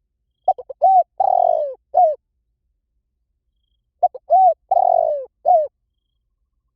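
Spotted dove cooing: two matching phrases about three and a half seconds apart, each a few short coos, then a longer drawn-out coo that falls in pitch, and a short closing coo.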